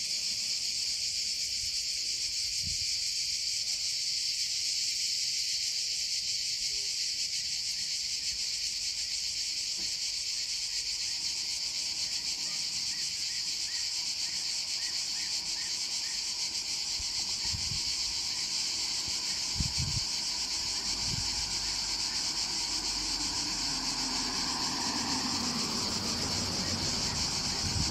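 Steady high-pitched insect buzzing, one unbroken chorus; a few low thumps come in the second half.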